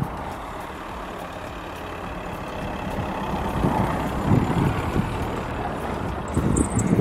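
Steady vehicle engine rumble that grows a little louder through the middle, with a few low buffeting bursts in the second half.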